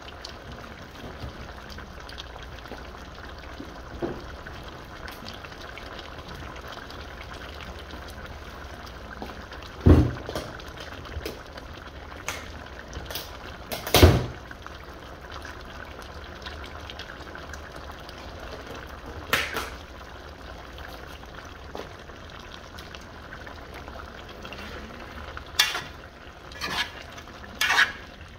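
Curry chicken gravy bubbling steadily in a metal pot on the stove. Two loud sharp knocks come about ten and fourteen seconds in, and a run of clinks and knocks near the end as a hand works in the pot.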